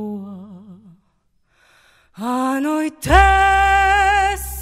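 A woman singing slow phrases with a wide vibrato: one note trails off, a short pause, then a note slides up. About three seconds in, a deep bass note enters with a thump under a long held sung note, with a brief break just before the end.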